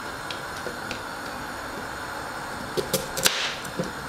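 Kitchen knife cutting a carrot on a plastic cutting board: a few light knocks of the blade on the board, most of them about three seconds in, over a steady background hiss.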